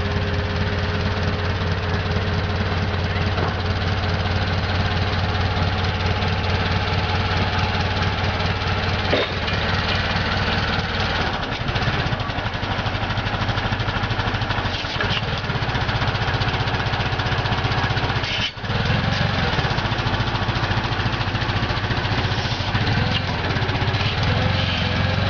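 Clark C500-50 propane forklift's engine running steadily. After a brief dropout about two-thirds of the way through, it runs a little louder as the truck moves off.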